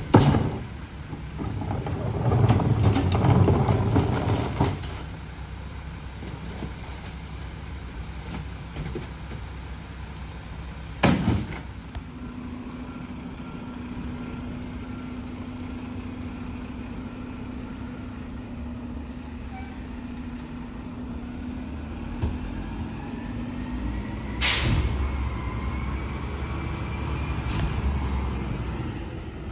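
McNeilus rear-loader garbage truck at work: a loud bang at the start, then a few seconds of heavy rumbling noise. After that the truck runs farther off with a steady low hum and a couple of single sharp bangs.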